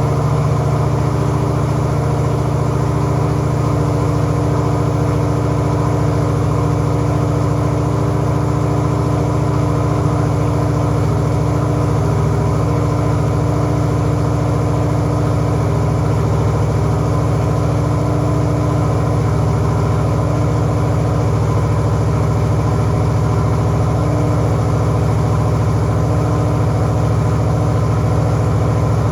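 383 cubic inch small block Chevy V8 stroker with a flat-tappet cam running at a steady speed on an engine dyno, with no revving.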